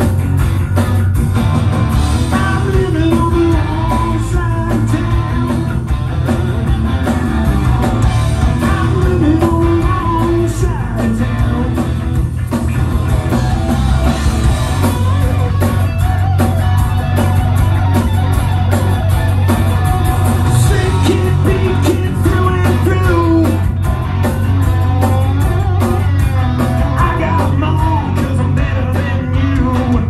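Rock band playing live: electric guitars, bass guitar and drums, with a sung lead vocal.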